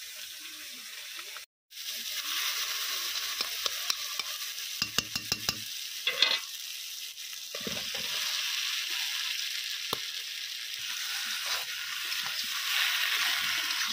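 Onion-tomato masala sizzling in hot oil in a black iron kadai, with a metal spatula scraping and clinking against the pan several times about five to six seconds in. The sizzle swells near the end as chunks of jackfruit fry and are stirred.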